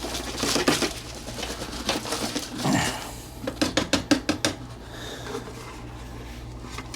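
Small hard objects being handled and knocked together, with rustling and a quick run of sharp clicks about halfway through.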